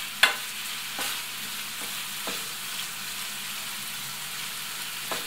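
Grated carrot and pieces of meat sizzling in a frying pan while a wooden spatula stirs them, with a few knocks of the spatula against the pan, the sharpest just after the start.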